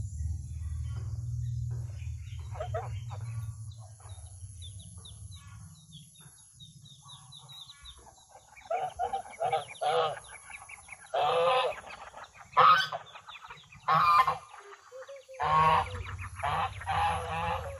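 Domestic fowl calling: from about halfway in, a run of loud, harsh, honking calls, with faint high chirps and a low steady rumble in the first few seconds.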